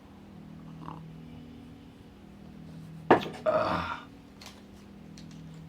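A man's single short burp about three seconds in, over a low steady hum, with a few faint clicks afterwards.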